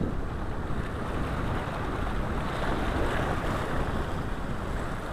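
Wind buffeting the microphone over small waves washing and breaking in the shallows, with one wave surging louder about three seconds in.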